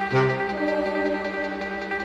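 Background music: sustained instrumental chords with a low bass note struck near the start.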